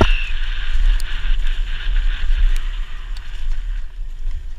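Downhill mountain bike ridden fast over a dirt forest trail, heard from a helmet camera: low rumble of wind buffeting the microphone and the bike rattling over the ground, with a sharp knock right at the start. The noise eases off near the end.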